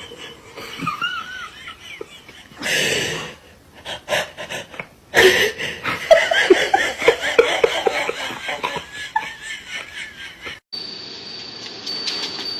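People laughing in short bursts, as a few separate clips cut from one to the next; a thin, steady high-pitched whine runs through the last two seconds.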